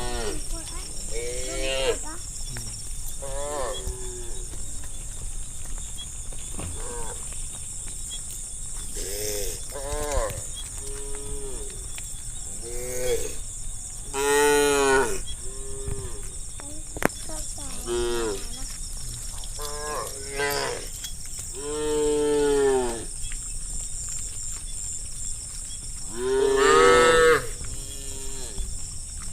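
A herd of cattle mooing, many calls one after another and some overlapping, with the loudest moos about halfway through and near the end. A steady high-pitched hiss runs underneath.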